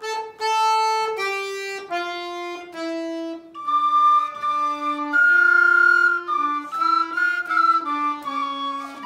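Two children playing a melody on end-blown fipple flutes, wooden folk pipes of the sopilka kind. The notes are clear and separate, stepping downward over the first few seconds and then moving up and down.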